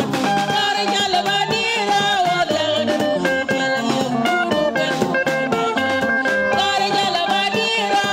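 A band playing live on electric guitars over a drum kit, a lively dance tune that keeps going without a break.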